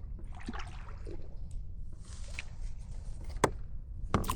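Water splashing and dripping, in two short spells, with two sharp clicks near the end and a steady low wind rumble on the microphone.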